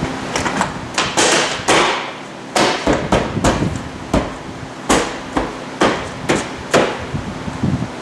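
A plastic vehicle trim panel being pressed and knocked by hand onto the body, a series of about fifteen sharp, irregular knocks as its retaining clips are pushed into their holes, over a steady heater-fan hum.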